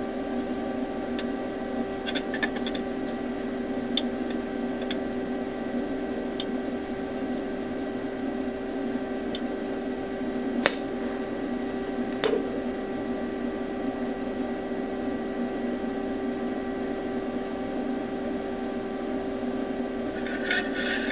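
TIG welding machine humming steadily during tack welding, with a few faint ticks and two sharper clicks a little after halfway.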